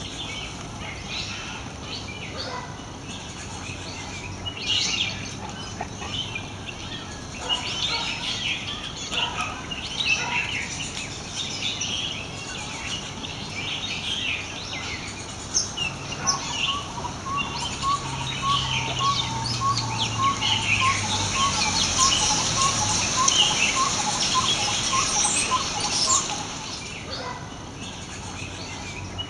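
A mixed flock of birds calling and chirping, with many overlapping short calls. From about halfway, one bird repeats a short note about twice a second for several seconds.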